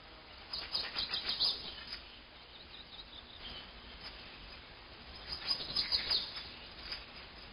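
A bird chirping in two quick bursts of high notes, the first about half a second in and the second about five seconds in.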